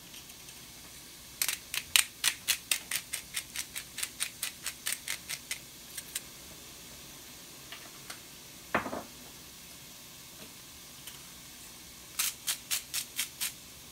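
Salt and pepper grinders being twisted over the pan, making quick ratcheting clicks, about five a second. A run of about four seconds comes first, then a single knock, then a shorter run near the end.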